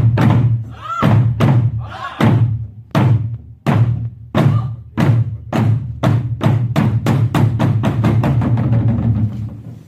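Korean pungmul percussion band striking together, starting with slow, widely spaced strokes that speed up steadily into a fast roll, then stopping together near the end.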